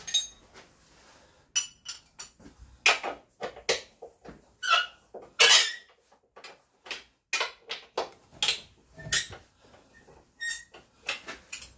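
Handling noise of hand tools and metal parts: an irregular string of short clicks, knocks and clinks with a few brief squeaks, the loudest a little past the middle.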